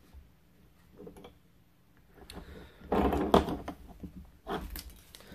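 Canvas-webbing M1936 suspenders with metal hooks and buckles being handled and set down on a table: short bursts of rustling and knocking, the loudest about three seconds in and another about four and a half seconds in.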